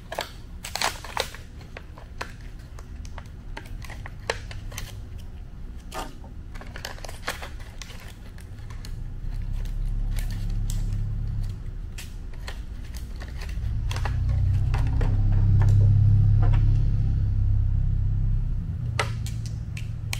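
Hands handling a small battery monitor and its adhesive strips: scattered clicks and crinkles. A low rumble swells from about halfway through and is loudest around three quarters of the way through.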